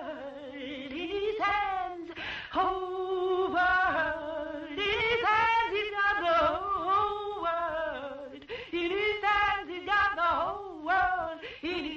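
A wordless voice singing in sustained notes that waver and bend, with short breaks between phrases.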